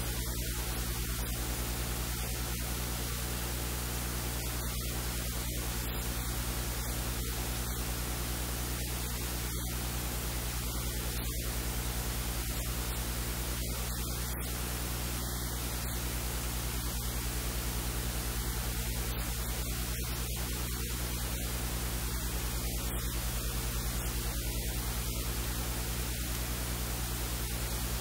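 Steady electrical hiss with a low mains hum underneath, unchanging throughout: recording noise with no other sound coming through.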